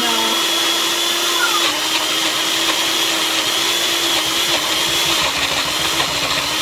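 Magic Bullet Mini blender motor running steadily as it blends frozen fruit with no liquid added. Its pitch dips a little about five seconds in as the blade loads, then recovers.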